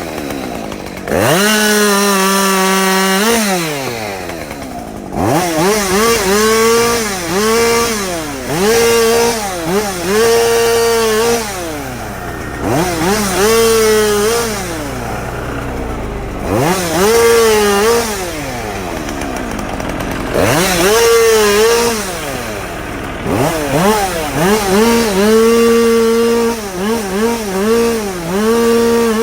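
Two-stroke chainsaw cutting a storm-downed tree, repeatedly revved up to full throttle and dropped back to idle in a dozen or so short bursts, some held for a second or two.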